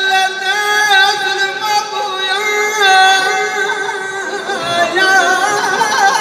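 Male aşıq singing long held notes with wavering ornaments, accompanying himself on the saz, a long-necked Azerbaijani lute.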